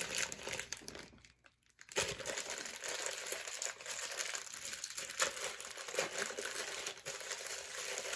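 Plastic and cardboard packaging crinkling and rustling as a boxed action figure is unpacked, with small clicks and crackles throughout; it stops for a moment about a second in, then carries on.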